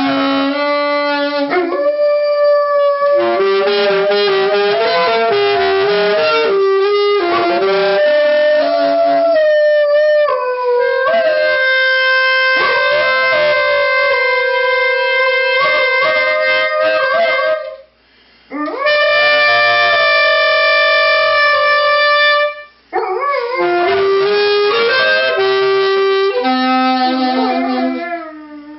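A saxophone played together with a golden retriever howling along to it, long held and sliding notes from both overlapping. The sound stops briefly twice, a little past the middle and about two-thirds of the way through.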